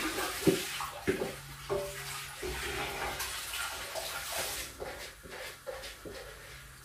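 Soaked rice and its soaking water pouring from bowls into large steel cooking pans, a steady splashing pour that thins out about five seconds in. A few knocks in the first two seconds.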